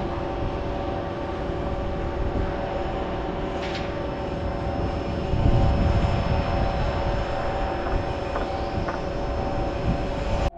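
Steady drone of heavy crane machinery: several held tones over a rushing noise, with wind rumbling on the microphone and swelling about five seconds in.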